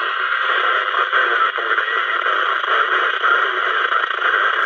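Audioline CB radio receiving on the 11 m band, putting out a steady loud band of static and hiss through its speaker, with a weak station that is only just readable under the noise. The static cuts off suddenly near the end as the set is keyed to transmit.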